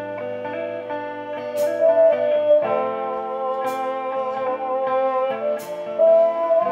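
Live band playing an instrumental passage: electric guitars and a violin hold long notes with slides between them, over drums with a cymbal crash about every two seconds.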